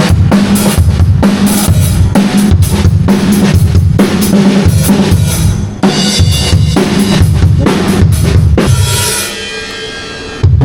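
Drum kit played in a steady beat during a sound check: bass drum, snare and cymbals. The playing stops about nine seconds in, leaving a cymbal wash that fades, and one more hit comes near the end.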